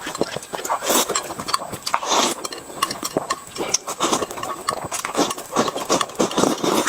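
Eating sounds: irregular crunching and smacking with many short sharp clicks.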